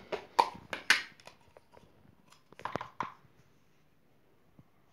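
Small clicks and taps of hands handling play dough and plastic modelling tools on a wooden table: several in the first second or so, and another cluster about two and a half seconds in.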